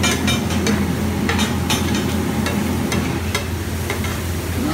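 A metal spatula scraping and clacking irregularly on a large flat griddle (tawa) as egg ghotala is mashed and stirred, with the egg mixture frying underneath. A steady low hum runs beneath it.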